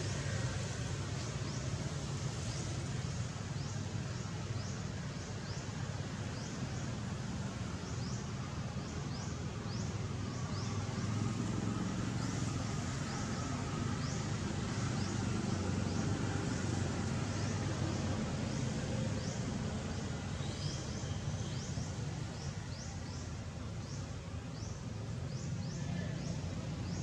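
Outdoor ambience: a steady low rumble under many short, high, falling chirps repeated through the whole stretch, like small birds or insects calling.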